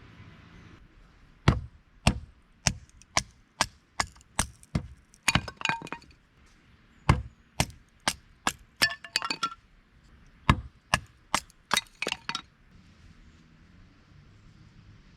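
Repeated sharp striking blows, about two a second, coming in three runs with short pauses between them.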